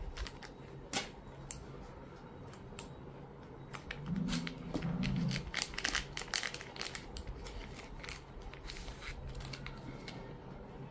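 Thin polythene bag crinkling and rustling as it is unwrapped from around a metal micrometer, a run of quick crackles and light clicks that is busiest in the middle. A short low hum sounds about four seconds in.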